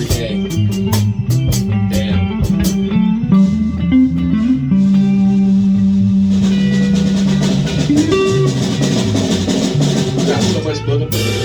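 A live rock jam on electric guitar, bass guitar and drum kit. Quick drum strikes open it, a long low held note follows, and a loud crash comes near the end.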